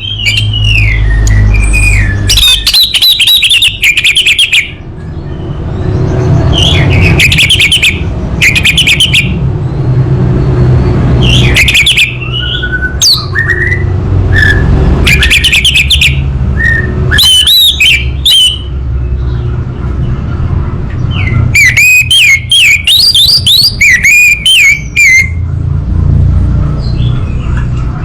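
Orange-headed thrush singing: varied phrases of quick whistles and trills, separated by short pauses, over a steady low rumble.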